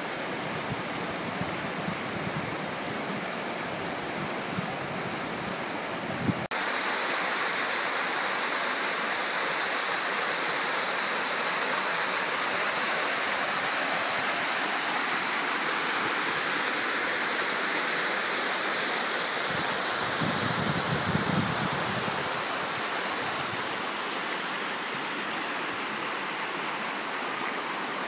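Mountain stream spilling over rock into a chain of pools: a steady rush and splash of small cascades. About six seconds in it cuts abruptly to a closer cascade, louder and brighter, then eases back a little near the end.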